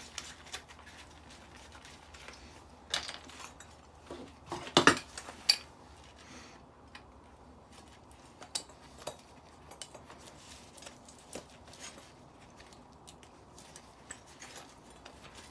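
Scattered clinks and knocks of metal parts, stainless steel and aluminium light fittings, being picked up and set down, with louder knocks about three and five seconds in.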